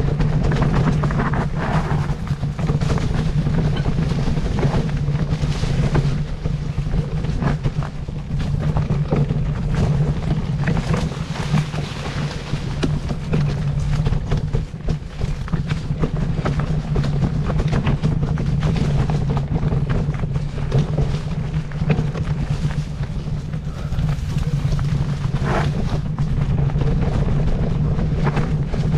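An engine running steadily with a constant low hum, with wind buffeting the microphone.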